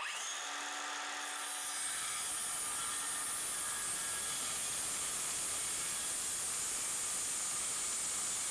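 Battery-powered circular saw starting up and running steadily as it rip-cuts along a particleboard sheet, spinning up at the start.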